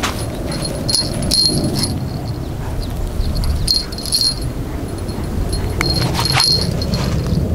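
Tuxedo kitten growling low while it bites and tugs a feather wand toy, the toy's small bell jingling in short bursts as it is shaken.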